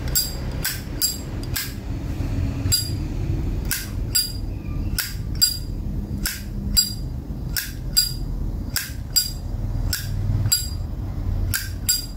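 Vintage 1988 brass Zippo lighter's lid being flicked open and snapped shut over and over: a string of sharp metallic clicks with a bright ring, about two a second. This is the lighter's original, unrepaired cam and hinge sound.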